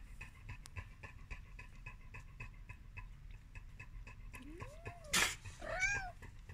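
A kitten meowing twice, short calls that rise and fall in pitch, about four and a half and six seconds in, with a brief loud rustle between them.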